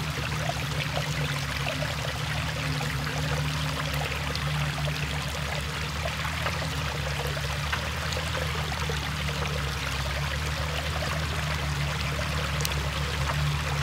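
Shallow water running steadily over the rocks of a creek-bed trail, under the low, steady hum of a Jeep Cherokee XJ's engine as it crawls slowly over the rocks.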